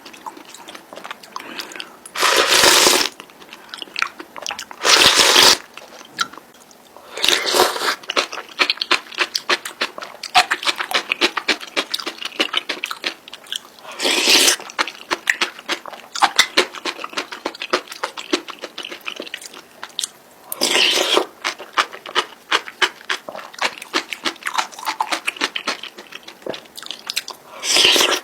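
Close-miked chewing of spicy instant noodles, with many small wet mouth clicks. About six louder noisy bursts, each half a second to a second long, break up the chewing.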